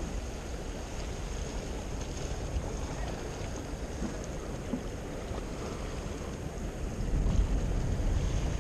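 Wind buffeting the microphone over the wash of small waves on breakwater rocks; the wind rumble grows stronger about seven seconds in.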